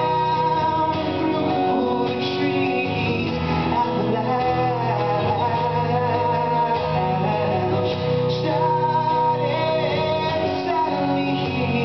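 Live solo acoustic guitar, strummed, with a man singing over it.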